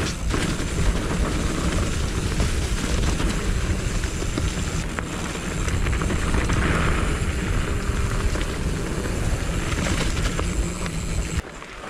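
Wind rushing over an action camera's microphone and the rumble of a mountain bike riding fast on a dirt trail, with a few short rattles; it drops off suddenly near the end.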